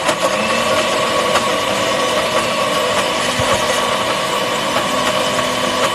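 Countertop blender running at speed, pureeing a bread-and-water mixture into a smooth bread cream after extra water was added to break up the chunks. A steady motor whir whose pitch steps up a little just after the start.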